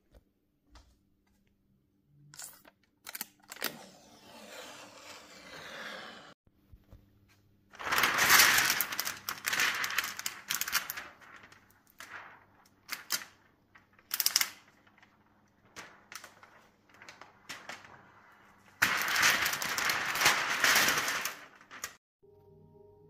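Clear plastic protective film crackling and crinkling as it is peeled off a flat-screen TV's screen, in two loud stretches with scattered crinkles and clicks between. Near the end the TV's soft start-up chime begins.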